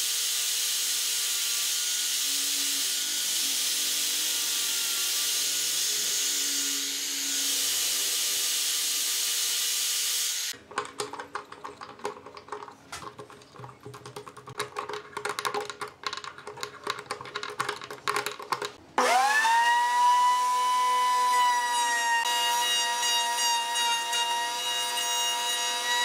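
A handheld power sander with a round sanding pad runs steadily against a wooden strip with a hiss for about ten seconds, then stops. Then come scattered clicks and knocks. About three-quarters of the way through, a router under a router table starts up with a whine that rises for about a second and then holds steady and loud as it runs.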